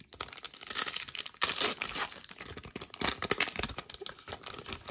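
Wrapper of a Panini Donruss Optic football card pack crinkling and crackling as it is handled, in quick irregular rustles throughout.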